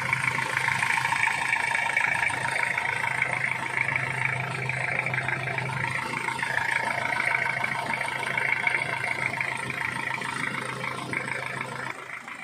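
2002 Hyundai Starex engine idling steadily just after a full overhaul: new liners, pistons, rings and oil jets, and corrected connecting-rod and main bearings.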